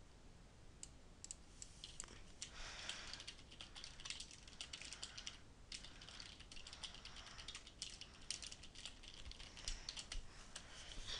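Faint typing on a computer keyboard: irregular key clicks, starting about a second in.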